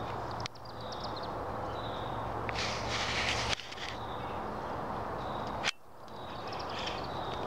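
Chimney swifts giving short high chips and twitters over a steady outdoor background hiss, with a brief louder burst of hiss about three seconds in.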